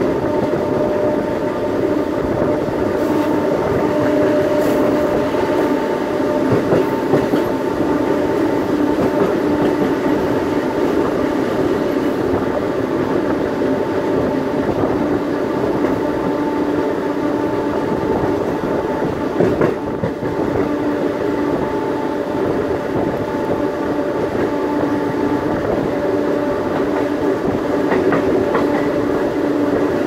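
CBTU Série 900 electric multiple unit running at steady speed: rumbling wheel and track noise with a steady hum of unchanging pitch from the train's electrical equipment, and scattered clicks of the wheels over the rails.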